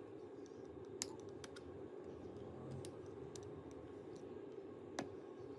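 Faint, scattered small clicks and taps of a spudger and tweezers on a MacBook Pro's logic board as the antenna cables are pressed onto their connectors, the sharpest click about five seconds in.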